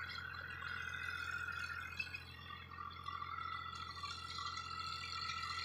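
Powertrac 439 Plus tractor running a 66-blade rotavator through field soil: a steady low engine hum under a high, rattling clatter from the tiller.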